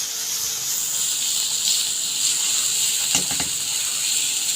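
Onion, tomato and capsicum masala sizzling in hot oil in a frying pan, a steady hiss, with a few light knocks about three seconds in.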